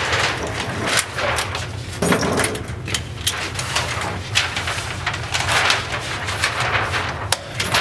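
Irregular sharp cracks and clanks: scattered gunfire echoing through an indoor range, along with metal handling of an M240B machine gun as its feed cover is raised and shut on an ammunition belt.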